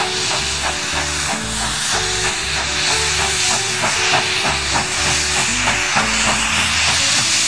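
Steam locomotive blowing off steam in tall jets: a loud, steady hiss. Background music with a regular beat plays underneath.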